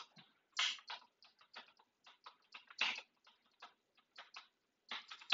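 Computer keyboard being typed on: irregular keystrokes, several a second, some louder than others.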